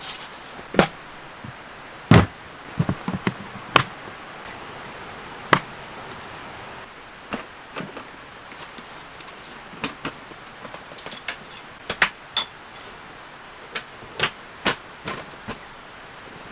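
Irregular knocks, clunks and clicks of hard plastic storage cases being carried, set down and handled, and of a small folding table being unfolded.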